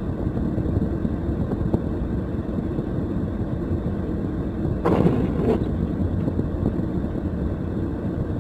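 Steady low rumble inside a car, with a short louder sound about five seconds in.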